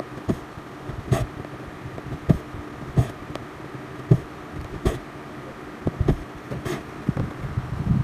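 Cross-stitch needle and thread being pushed and pulled through stiff aida cloth, making a soft tick or pop about once a second over a steady low hum.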